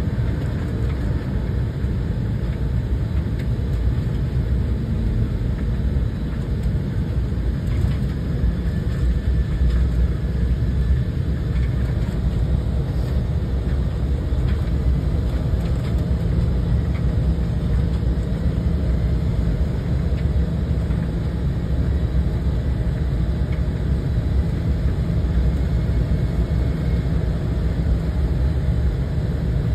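Steady low rumble of a jet airliner's cabin in flight: engine and airflow noise heard from a window seat during the descent to land.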